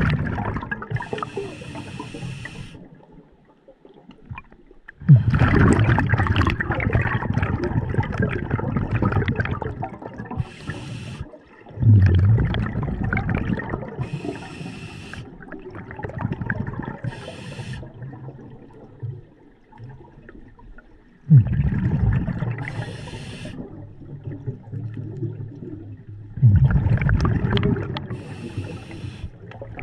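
Scuba diver breathing underwater through a regulator. There are about four long rushes of exhaled bubbles, each lasting several seconds, and short high hisses between them as air is drawn through the demand valve.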